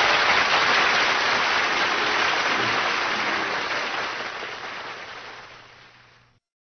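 Studio audience applauding, the applause tapering away over about six seconds.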